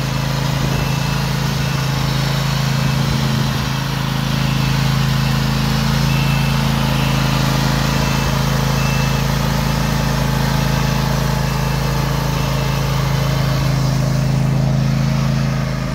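Petrol engine of a Snapper zero-turn riding mower, converted into a disinfectant sprayer, running steadily at an even speed as the machine drives along spraying.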